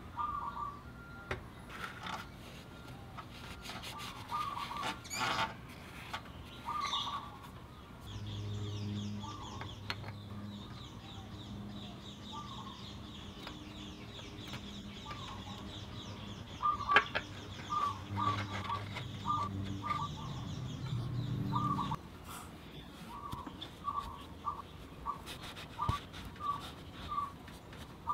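Birds calling: short chirping notes repeated over and over, coming about two a second near the end. A low steady hum runs under them through the middle and cuts off suddenly about three-quarters of the way through, and there are a few sharp clicks of metal parts being handled.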